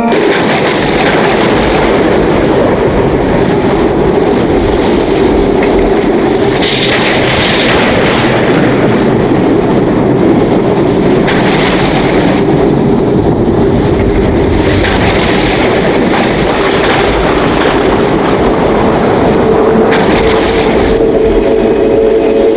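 Heavy rain pouring down, a loud, steady hiss that swells and eases every few seconds.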